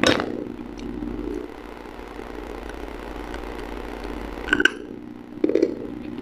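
Crisp crunches of a white chalk-like stick being bitten: one sharp crunch right at the start, then two short ones about four and a half and five and a half seconds in, over a steady low hum.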